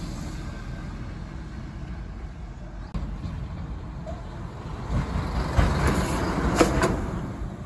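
Steady road traffic noise, then a heavy truck passes close by about five seconds in, its tyres rolling over a heeled mule sandal on the asphalt. A couple of sharp cracks come as the shoe is crushed.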